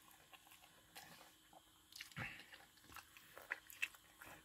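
Faint chewing of food, with a few soft mouth clicks; the loudest comes about two seconds in.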